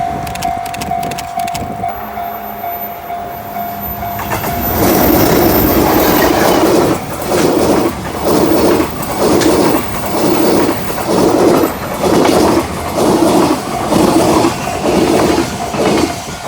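A train passing over a level crossing: a loud rush from about five seconds in, then a regular clatter of wheels over the rail joints, a little more than one beat a second, fading near the end. A steady high tone is heard during the first few seconds.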